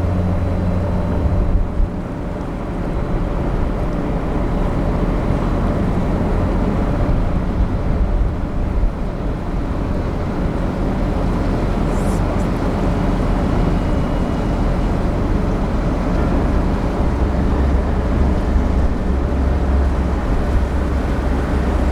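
Steady low drone of the cargo-passenger ship Hahajima Maru's engines, heard from on board, under a continuous rushing noise.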